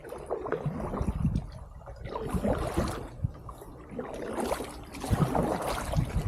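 Kayak paddle strokes splashing through canal water, coming in uneven surges about once a second, with low rumbling noise on the microphone.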